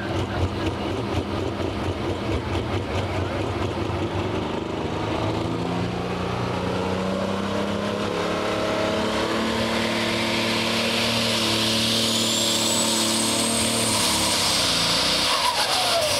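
Super/Pro Stock pulling tractor's turbocharged engine running unevenly at the line, then building revs with a high turbo whine climbing about ten seconds in as the tractor starts its pull.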